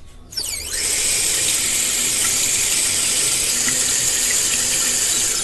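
Shower spraying hard: a loud, steady hiss of running water. It starts with a brief high-pitched squeal that falls in pitch about half a second in.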